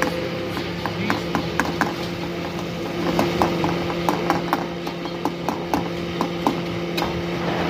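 A steel ladle clinking and scraping against an iron karahi as chickpea curry is stirred, in many quick, irregular knocks. A steady low hum runs underneath.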